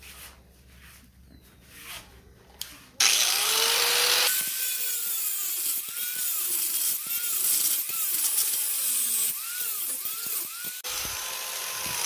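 A few handling knocks, then about three seconds in a Drill Master 4-1/2" angle grinder starts and grinds into the steel freewheel body of a Razor MX650 rear hub. Its whine dips and recovers again and again as the disc bites, cutting a flat spot for a wrench to grip. Near the end it is switched off and winds down in a falling whine.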